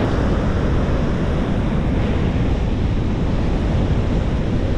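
Steady wind rushing over the microphone while riding an e-bike along the beach, with breaking surf behind it.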